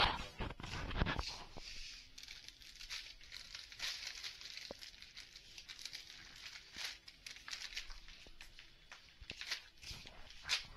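Clear plastic packaging on packs of cotton nappies crinkling and rustling as the packs are pulled from a shelf and handled, with scattered light knocks. It is loudest in the first second.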